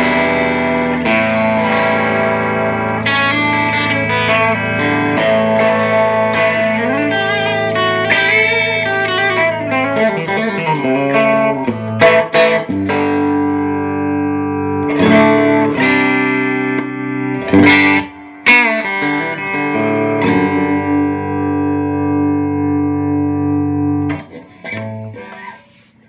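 Electric guitar played through a Longbeard Lil' Jake hand-wired combo amplifier: ringing chords and single-note lines with string bends, several sharp struck chords in the middle, dying away near the end.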